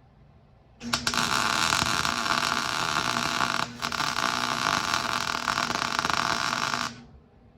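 MIG welding gun arc crackling steadily as a caster plate is welded onto a steel base, starting about a second in, with a brief pause near the middle, and stopping shortly before the end.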